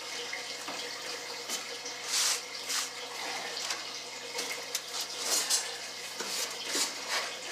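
Dust and lint being cleared out from around a clothes dryer's drive motor and belt tensioner: short bursts of hissing and rustling, several times over a steady hiss.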